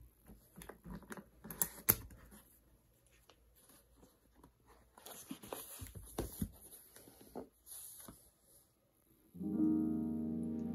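Quiet handling sounds, light taps and clicks with one sharp click about two seconds in, then the rustle of book pages being handled and turned. About nine seconds in, soft piano background music begins and becomes the loudest sound.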